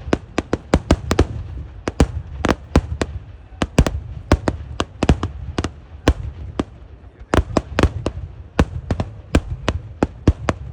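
Kerala temple-festival eeduvedi fireworks: a rapid, irregular string of sharp explosive bangs, about three a second, with a low rumble between them.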